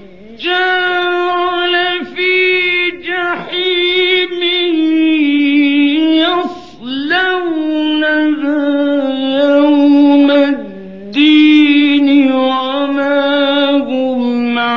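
A man reciting the Quran in the slow melodic mujawwad style, holding long drawn-out notes with ornamented turns of pitch. He pauses briefly for breath between phrases, longest about two-thirds of the way through.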